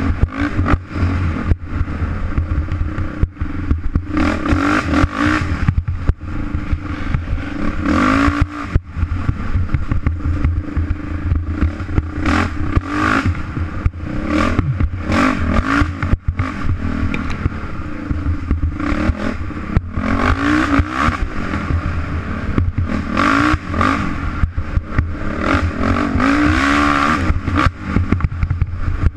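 Dirt bike engine heard from the bike itself, revving up and falling back again and again as the rider accelerates and eases off, with frequent knocks and rattles as the bike hits bumps.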